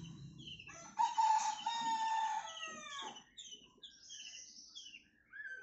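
A rooster crows once, starting about a second in and lasting about two seconds; it is the loudest sound here. After it, a male white-rumped shama, just out of its moult, gives short, high whistled song notes.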